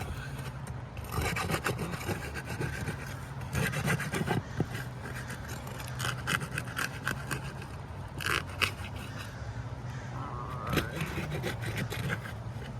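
Metal pry bar scraping and ticking against asphalt shingles as their fasteners are pried loose, in irregular clusters of scrapes and sharp ticks over a steady low hum.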